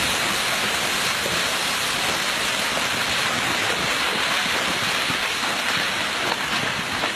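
Landslide: a steady, loud rushing hiss of earth and rock pouring down a hillside.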